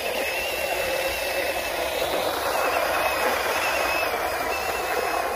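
Tenspeed 9522-3 RC car's electric motor and gears running steadily, with a thin high whine over a noisy drive sound.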